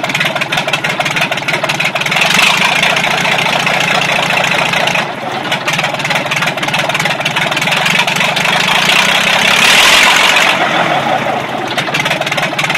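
Leyland 600 six-cylinder diesel running with no exhaust manifold fitted, firing straight out of the open exhaust ports, on its first run after fitting overhauled cylinder heads and injectors. It gets louder about two seconds in, dips briefly near five seconds, and swells again around ten seconds before easing back.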